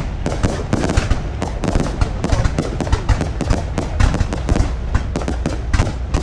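Fireworks display going off in rapid, continuous bangs and crackles, many a second, over a steady low rumble.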